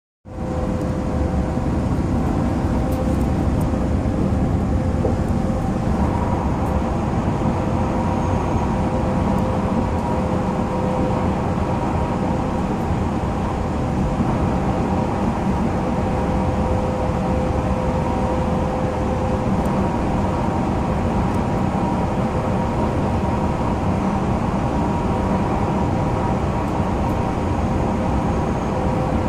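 Bus interior on the move: a steady engine and road rumble heard from inside the cabin, with a faint constant whine over it.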